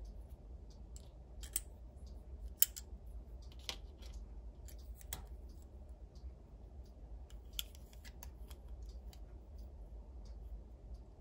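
Small plastic pieces of a Hello Kitty bakery playset clicking and tapping as they are handled, a scattering of light clicks at irregular intervals, the sharpest about two and a half seconds in, over a faint steady low hum.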